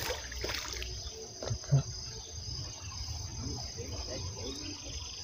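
Insects chirring steadily in the background, a constant high-pitched trill, with a few short soft knocks near the start and around a second and a half in.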